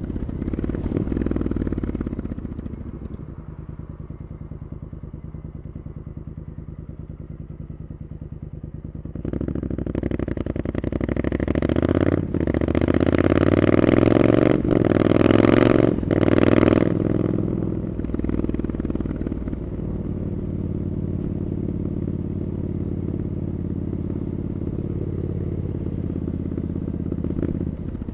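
Triumph Scrambler 900's parallel-twin engine through an Arrow aftermarket exhaust, under way: running at low revs, then accelerating hard about a third of the way in, the note climbing with three quick breaks for upshifts, before easing off to a steady low run for the rest.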